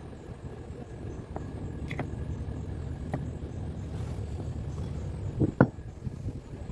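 A steady low rumble with a few light clicks and one louder knock about five and a half seconds in.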